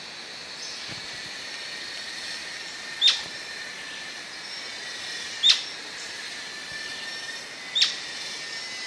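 Atlantic royal flycatcher (maria-leque-do-sudeste) calling: three short, sharp notes, each falling quickly in pitch, evenly spaced about two and a half seconds apart.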